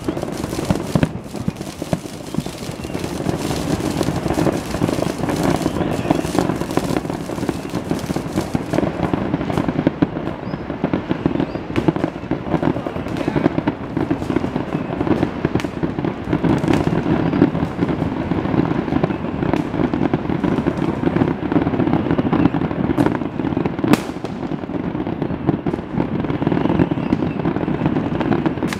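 Aerial firework shells from a large display bursting in a continuous barrage: a steady rumble of bangs and crackling with many sharp cracks throughout, and one especially sharp crack late on.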